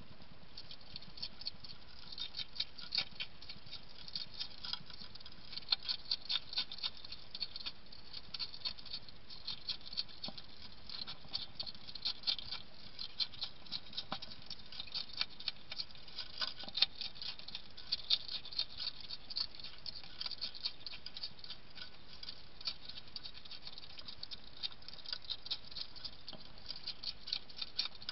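European hedgehog chewing dry kitten biscuits from a ceramic bowl: a long run of quick, irregular, crisp crunching clicks over a steady hiss.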